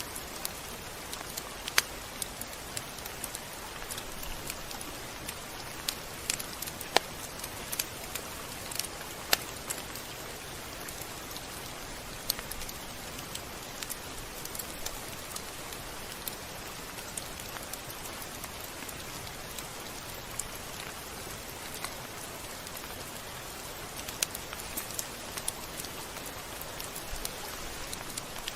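Steady rain: an even hiss with scattered sharp drop ticks, a few of them louder.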